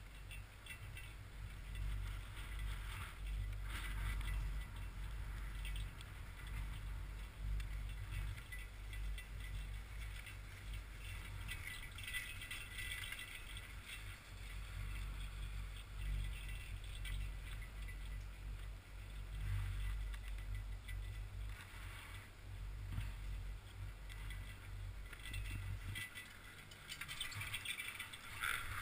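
Chairlift ride heard through a GoPro: a steady low rumble with light rattling and clicking from the lift, the rattling coming in short clusters. The rumble drops away a couple of seconds before the end, at the top of the lift.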